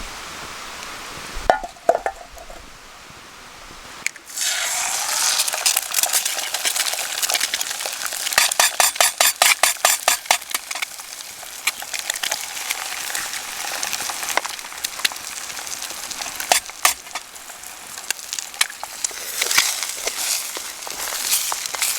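Food sizzling in a hot pan over a cooking fire, with rapid crackles and clinks of a utensil against the pan. A few clicks come about a second and a half in, then the sizzle starts loudly about four seconds in and keeps going.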